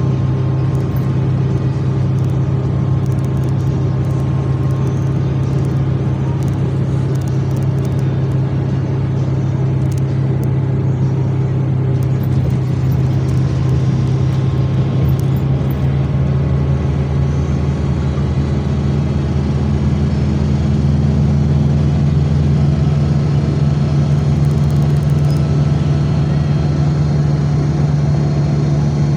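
Motor vehicle's engine running steadily with road noise during a drive, a constant low hum whose note shifts a little about two-thirds of the way through.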